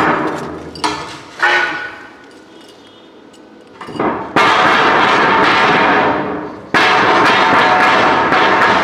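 Hammer striking a steel landing plate to knock it into place: three ringing blows in the first second and a half, then, after a short lull, a loud dense clatter of metal on metal that starts suddenly about four seconds in.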